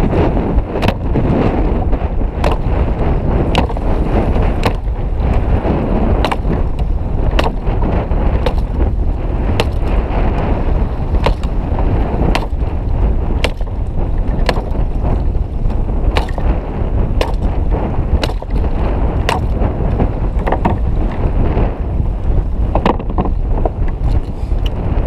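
Strong wind buffeting the microphone over choppy sea, with sharp knocks against the kayak about once a second.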